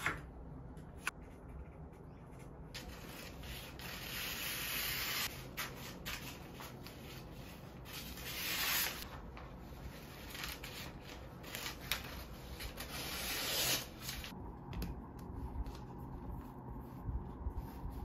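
Brown kraft pattern paper being handled and cut on a worktable: several swells of rubbing, rustling paper noise a few seconds long, with a few sharp clicks.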